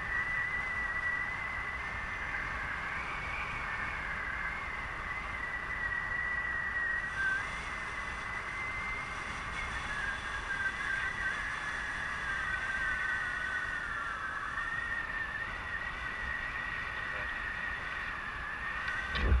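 Wind rushing past the microphone in paraglider flight: a low buffeting rumble with a steady high whistle that slowly wavers in pitch. A sharp knock near the very end.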